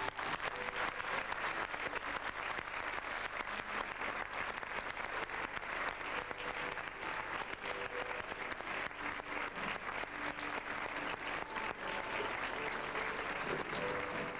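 Theatre audience applauding steadily: dense, continuous clapping from many hands.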